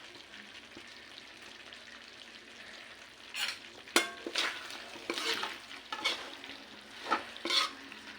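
Pork teriyaki with bell pepper sizzling in its sauce in a pan over low heat. From about three seconds in, a cooking utensil stirs the food and scrapes the pan in several strokes, with a sharp clack against the pan about four seconds in.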